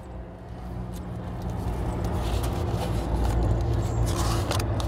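A vehicle engine running steadily with a low hum, growing louder about a second in. A book page rustles as it is turned near the end.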